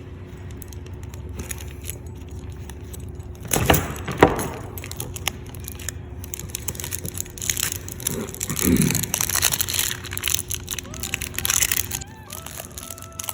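Tape being pulled off the roll and wrapped around the end of a shielded MC cable at its connector: irregular crackling and tearing, with two sharp handling knocks about four seconds in.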